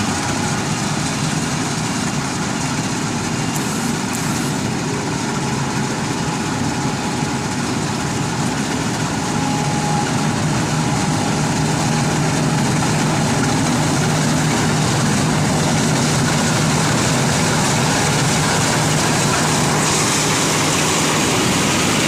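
Marksan MS-1200 combine harvester running steadily with a low engine hum, growing a little louder about halfway through as the machine comes closer.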